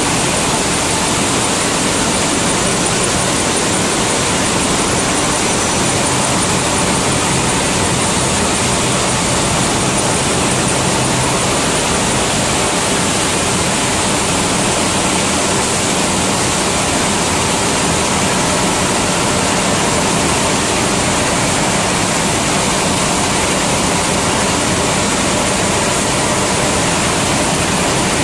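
Wheat flour milling line running: roller mills, sifters and pneumatic conveying fans giving a loud, steady mechanical rush with faint constant whines.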